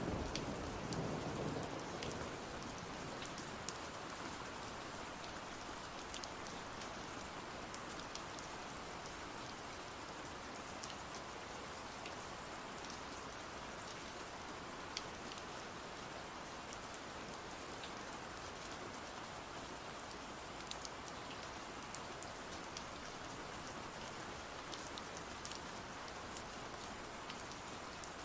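Steady rain falling, an even hiss with scattered small sharp ticks. A low thunder rumble dies away in the first couple of seconds.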